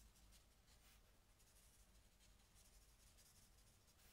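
Near silence, with the faint scratch of a Stampin' Blends alcohol marker's tip stroking over white cardstock as a stamped image is coloured in.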